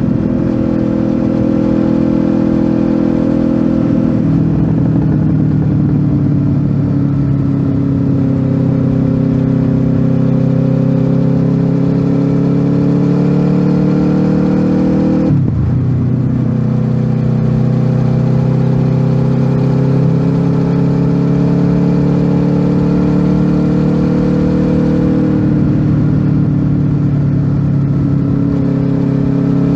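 Honda VFR800F's V4 engine through an SC Project aftermarket exhaust, riding under way. The exhaust note climbs slowly as the bike gathers speed and drops in pitch at three upshifts, the sharpest about halfway through.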